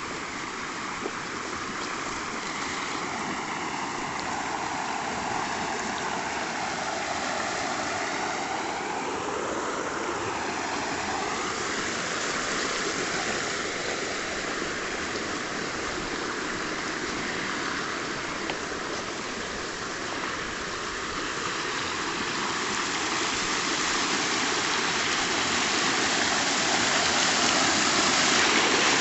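River water rushing over a small weir, a steady rush that grows louder toward the end.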